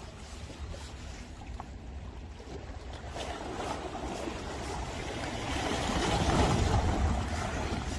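Small sea waves washing against the riprap rocks of a seawall. One surge builds from about three seconds in and is loudest around six to seven seconds, over a steady low rumble.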